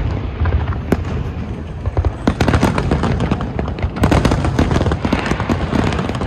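Aerial firework shells bursting in quick succession: many bangs and crackles over a steady low rumble.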